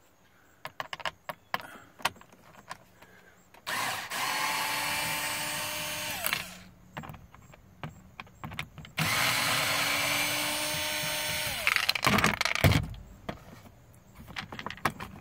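A power drill-driver backing out two screws in two runs of a few seconds each. The motor's pitch falls as it spins down at the end of each run. Small clicks and knocks come between the runs, and a heavy thump near the end.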